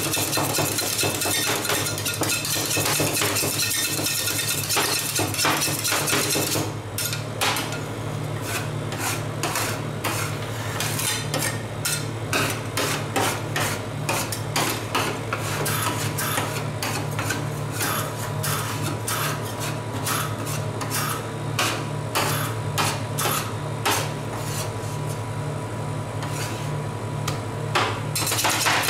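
Metal spatulas chopping fast on a frozen steel ice-cream plate, a dense rattle of clicks. About seven seconds in it slows to scattered taps and scrapes, and the fast chopping returns near the end. A steady low hum runs underneath.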